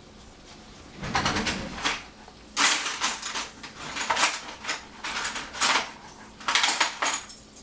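Kitchen knife slicing a lemon on a plastic cutting board: several short runs of clicks and taps as the blade cuts through the fruit and knocks against the board.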